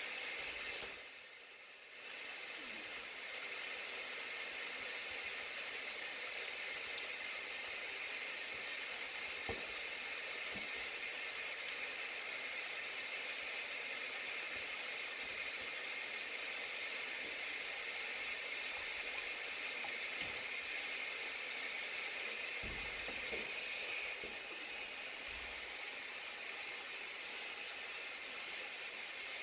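Steady hiss from running HVAC equipment, briefly dropping away about a second in, with a few faint clicks.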